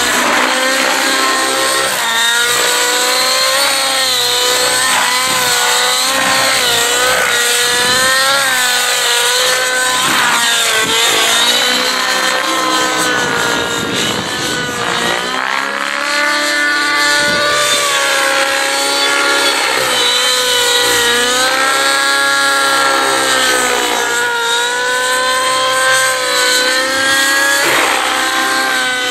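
Nitro-engined RC helicopter (Rave ENV 90) in aerobatic flight: the high-revving glow engine's whine wavers up and down in pitch all the way through. Around the middle the pitch sags and the sound fades a little as the helicopter climbs high, then it comes back strong.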